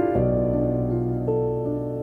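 Slow, soft background piano music: a chord with a low bass note held through, with the upper notes changing about halfway.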